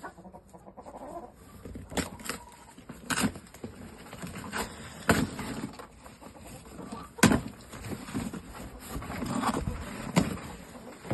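Game fowl in a shipping box, with clucking and shuffling, and a series of sharp knocks, the loudest about seven seconds in.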